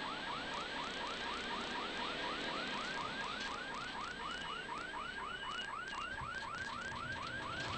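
An electronic alarm or warning tone in the rally car's cabin, a fast train of short chirps that each rise in pitch, about five a second, over the steady noise of the car driving.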